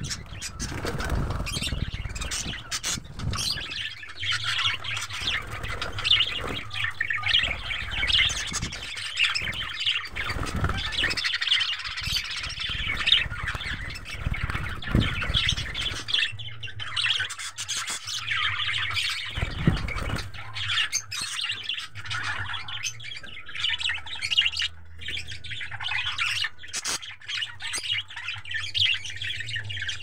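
Several budgerigars chattering and chirping without a break, with some wing flapping and a few low thuds.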